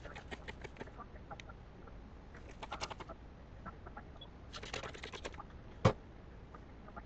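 Soft crackling and rustling from hands working through curly hair close to the microphone, in two short flurries, with one sharp click just before six seconds in.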